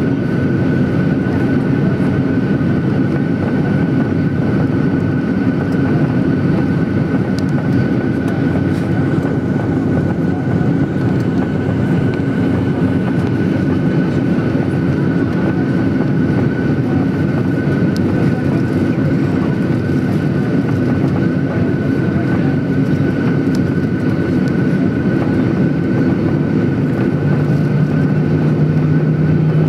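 Cabin noise inside a Boeing 737-800 taxiing after landing: the steady hum and whine of its CFM56 turbofans at low power, with a thin steady high tone throughout. Near the end a lower steady hum joins in.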